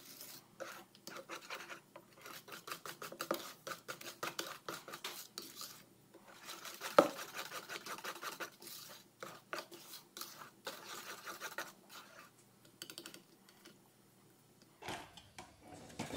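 Chocolate cake batter being stirred briskly by hand in a bowl: rapid scraping strokes of a utensil against the bowl's side, with one sharper knock about seven seconds in. The strokes thin out after about twelve seconds.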